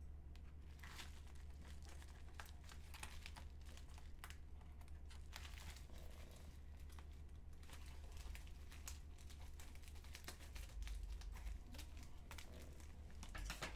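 White plastic bubble mailer crinkling and rustling in short, irregular crackles as it is cut open with scissors and handled.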